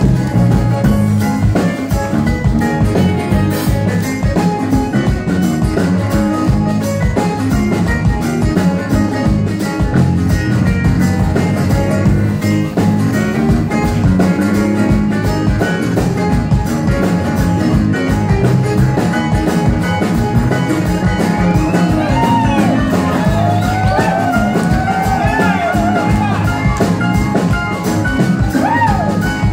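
Live music: an acoustic guitar played over a steady beat. From about three-quarters of the way through, bending high notes glide over the top.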